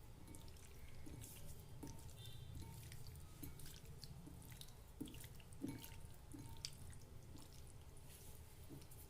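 Faint water dripping with scattered small wet clicks and taps, over a low steady hum.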